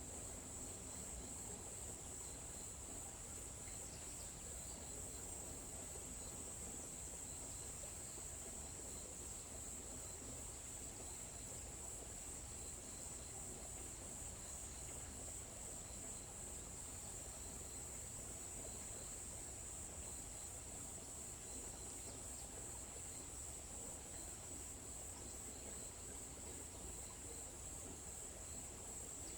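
A steady, high-pitched chorus of insects chirping, with a fainter, quicker chirp repeating underneath and a soft low rumble of background noise.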